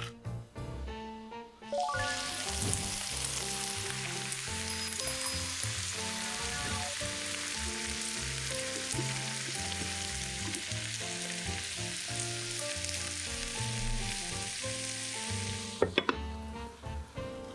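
Broccoli, carrot and potato pieces sizzling in oil in a frying pan as a wooden spatula stirs them, starting about two seconds in and stopping abruptly near the end. Just after it stops, the glass pan lid goes on with a few clinks.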